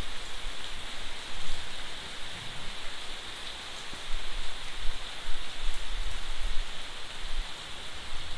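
Steady rain falling on trees and leaves, an even hiss that holds through without a break.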